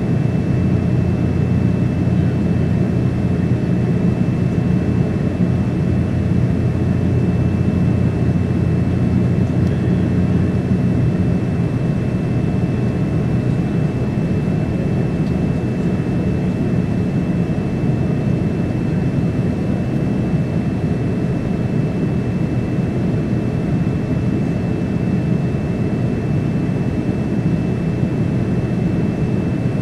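Steady cabin noise inside a Boeing 787-9 on descent: a low, even rumble of airflow and its Rolls-Royce Trent 1000 engines, with a faint steady high tone above it.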